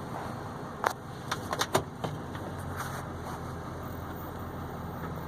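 Duramax diesel V8 running steadily, heard inside the truck's cab. About a second in there is a quick run of sharp clicks as the truck is shifted out of four-wheel-drive low.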